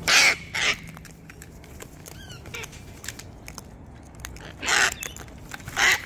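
Cockatoos giving harsh screeching calls: two right at the start, another a little before five seconds in and one more at the end, with a few faint chirps in between.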